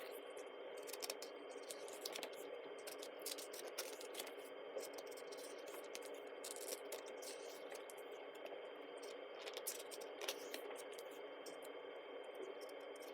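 Quiet handling of a thick-paged photobook: scattered soft clicks, rustles and scrapes of paper at irregular moments over a steady faint hiss.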